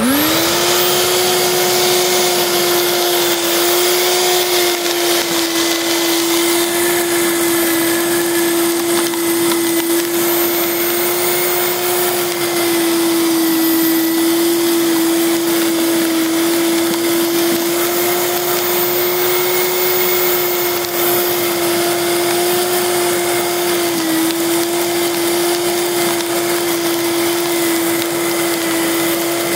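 Electric lawn scarifier (dethatcher) starting up abruptly and running with a steady motor whine as its straight blades dig into and tear up the turf. The pitch dips briefly a few times.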